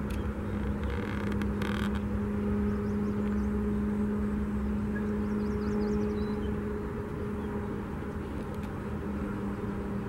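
Steady, distant engine drone, one low hum with a fainter higher tone above it, over a low rumble. Faint high chirps come and go.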